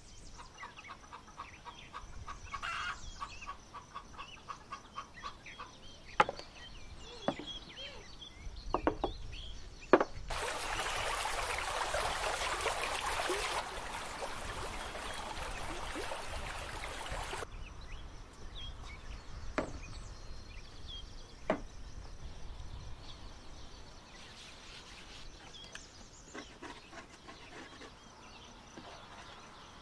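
A shallow stream running over stones, a steady wash of water that starts and stops abruptly for about seven seconds in the middle. Around it, scattered sharp wooden knocks on a wooden work table, and a bird calling in rapid repeated notes near the start.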